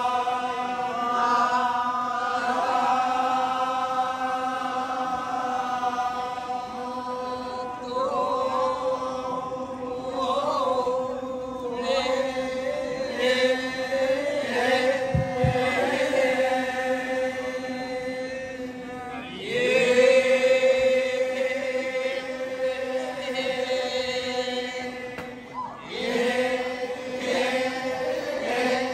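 Badong, the Torajan funeral chant: a group of voices chanting long held notes together, sliding into new phrases about eight, twenty and twenty-six seconds in.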